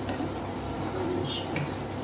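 Wooden spatula stirring tofu and vegetables in a cooking pot, with a couple of faint knocks against the pot over a steady low hum.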